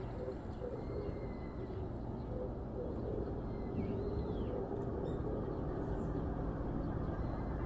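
Steady outdoor ambience, a low rumble like distant traffic or wind, with a faint high chirp about four seconds in.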